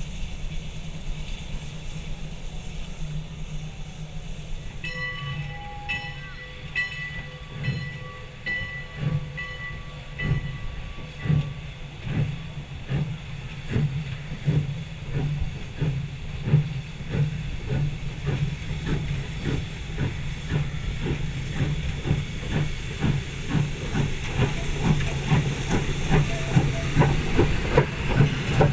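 0-6-0 switcher steam locomotive hissing at rest, then sounding its multi-tone steam whistle for about five seconds. It then starts off with exhaust chuffs that quicken steadily from about one a second to two or more a second as it gathers speed.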